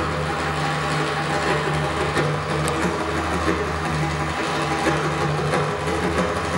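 Live instrumental accompaniment for the whirling dance: a steady low drone under a dense, busy texture, with no breaks.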